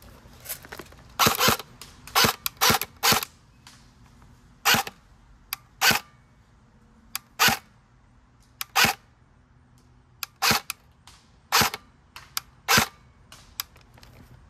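Stock electric airsoft SCAR-L (AEG) with a suppressor fitted, firing single shots: about fifteen short pops at uneven intervals of half a second to a second and a half, each one a gearbox cycle.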